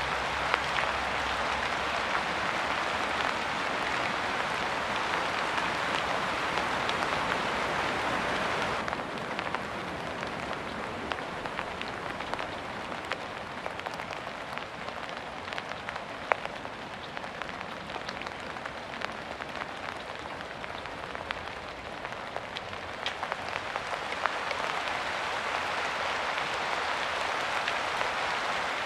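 Steady rain: a dense hiss of drops that thins about nine seconds in to a lighter rain with separate drops ticking, then grows dense again near the end.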